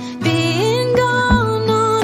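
Background music: a sung melody over a bass line with a regular beat.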